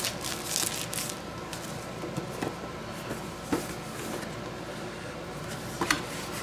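Handling a cardboard product box freshly stripped of its plastic shrink wrap: the wrap crinkles in the first second, then the box gives a few soft knocks and scrapes as it is turned over on the counter.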